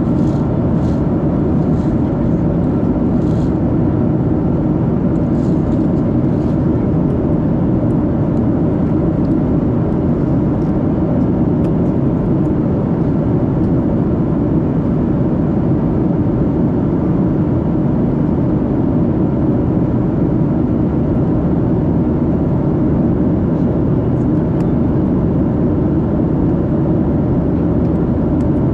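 Cabin noise of a Boeing 737-700 at cruise: a steady, even rush of airflow and engine noise, strongest in the low range, with a faint high ticking in the first few seconds.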